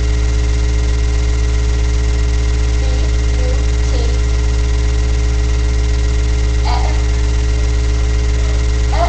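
Steady low electrical hum in the webcam's recording, with a few faint, short voice sounds about three to four seconds in and again near seven seconds.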